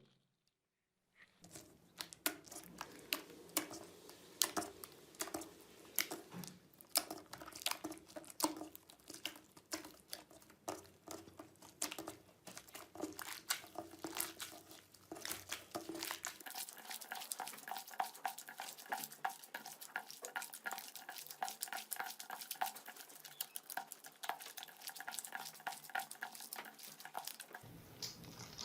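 Slime being squeezed and poked by hand, giving a stream of small sharp clicks and crackles. About halfway through the crackling becomes denser and faster.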